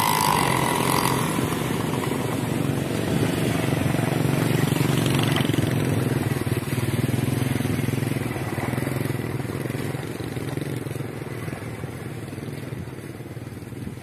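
Motorcycle engines running and pulling away at a level crossing, swelling a few seconds in and then slowly fading.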